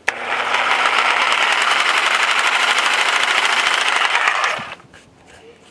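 Black & Decker Firestorm FS9500RS corded reciprocating saw switched on at its slow speed and run with no load, a steady rapid chatter of the blade stroke. It runs for about four and a half seconds, then winds down and stops.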